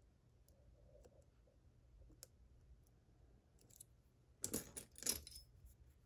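Faint clicks of a lock pick working the pins of a Mottura Viper cylinder lock, then, about four and a half seconds in, a louder scraping and clicking of the metal tools lasting under a second.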